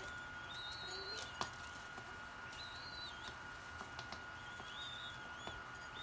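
Young doves squeaking: several short, high-pitched whistled calls, each rising and then holding, about half a second long. A sharp tap comes about one and a half seconds in, with a few fainter taps later.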